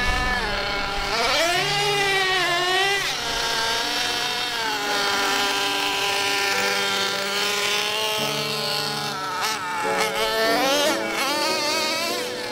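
Traxxas T-Maxx 3.3 nitro RC monster truck's small two-stroke glow engine revving as the truck drives, a high buzzing note that repeatedly rises and falls in pitch with the throttle.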